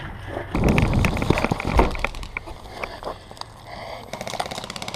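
Heavy thumps and rustling of a player charging across the field with the camera, then from about four seconds in a fast, even patter of full-auto airsoft gun fire.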